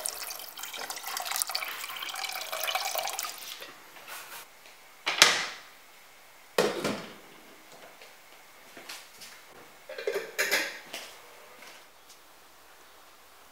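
Water poured in a stream into a pot of lentil soup, splashing steadily for about three and a half seconds. Then a stainless steel pot is handled: two sharp knocks a second and a half apart, and a short clatter of smaller knocks later.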